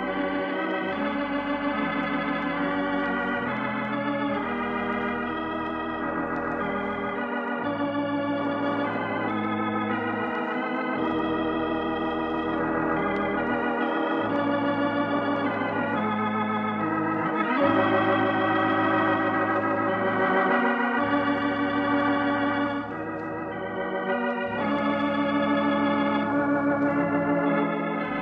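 Organ playing slow, sustained chords with a slight vibrato over deep bass pedal notes that drop in and out, the closing music of a transcribed radio program.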